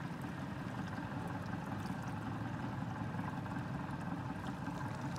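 A boat under way: a motor running with a steady low hum over water rushing past the hull.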